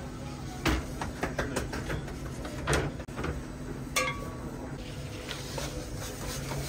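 Kitchen work clatter: irregular knocks and clinks of metal utensils and trays, with a longer scrape a little under three seconds in and a clink that rings briefly about four seconds in, over a steady hum.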